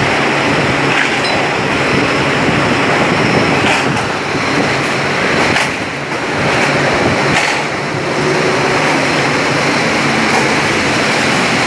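Loud, steady clatter of a bottling-line conveyor carrying crates of empty glass bottles, with a few sharp knocks as plastic crates are pushed onto the rollers.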